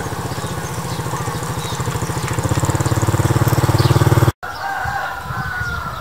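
A small engine running with a fast, even pulse, growing louder for about four seconds and then cutting off abruptly. Short, wavering bird calls follow near the end.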